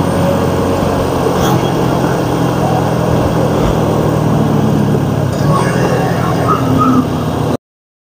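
Motorcycle engine running steadily under way, with road and wind noise; the sound cuts off suddenly near the end.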